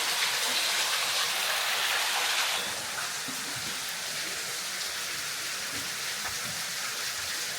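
Water falling and dripping into a small rock pool: a steady splashing hiss, a little louder for the first two and a half seconds, with a few faint drips.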